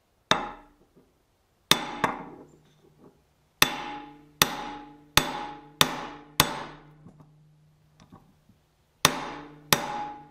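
A hammer striking the driver tube of a Tusk steering stem tool, about ten sharp metallic blows in uneven groups, each ringing briefly, with a pause of a couple of seconds before the last two. The blows are driving a new steering head bearing down onto a motorcycle steering stem, and the bearing is going down.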